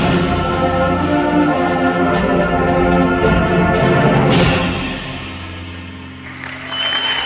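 Concert band playing the closing bars of a piece, with brass, winds and timpani on a loud final chord. A last crash comes about four seconds in, the sound rings away, and audience applause starts near the end.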